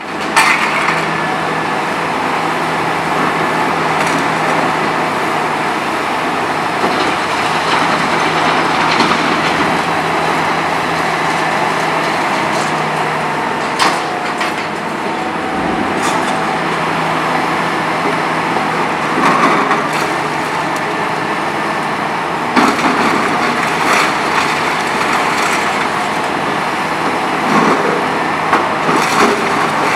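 Hitachi ZX 300LC-6 excavator's diesel engine running steadily under load while its VTN VF 23 hydraulic crusher breaks up concrete. Several sharp cracks and snaps of concrete giving way come in the second half.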